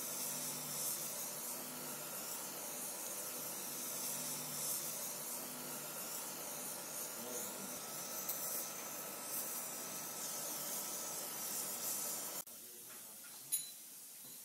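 Gas torch flame hissing steadily while heating a joint in a metal strip, cutting off abruptly about twelve seconds in. A single sharp click follows about a second later.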